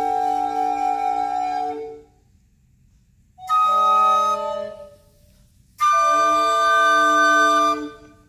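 Ensemble of five recorders of different sizes playing sustained chords: one chord held until about two seconds in, a short chord about three and a half seconds in, and a longer held chord from about six seconds until near the end, with silent rests between them.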